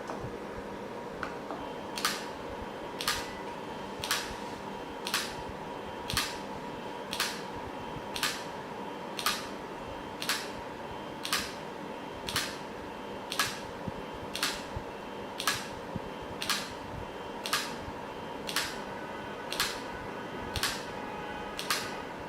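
Limit switch clicking about once a second, some twenty times, as a stepper-motor-driven arm presses it repeatedly in a switch-testing machine. A steady faint hum runs underneath.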